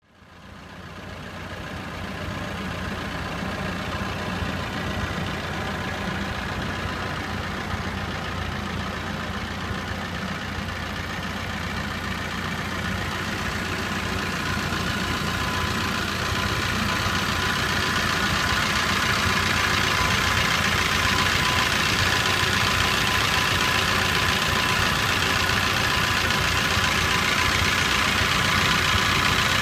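Car engine idling steadily, the noise growing louder over the first twenty seconds or so; a mechanical clatter that the owner suspects is a worn, noisy timing chain rather than a knock.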